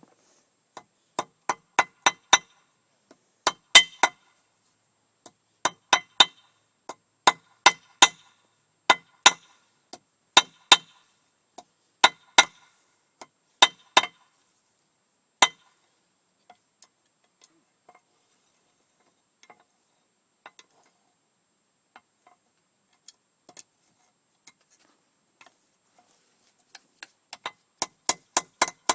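Hammer blows on an anvil, forging the point of a bodkin arrowhead: sharp ringing metallic strikes in quick runs of two to four, a stretch of only faint taps in the middle, then a fresh run of strikes near the end.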